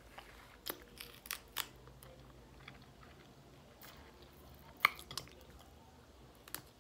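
A person chewing a mouthful of rice, beans and chicken: scattered soft mouth clicks and smacks, the loudest about five seconds in.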